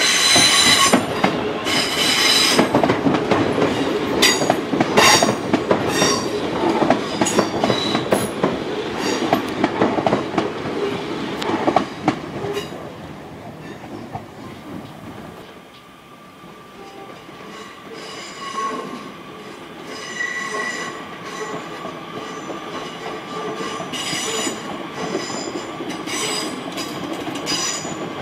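Train wheels running over rail joints and pointwork: rapid clattering clicks and knocks with high-pitched wheel squeal, loudest in the first dozen seconds. The clatter eases off around the middle, and the squeal returns near the end.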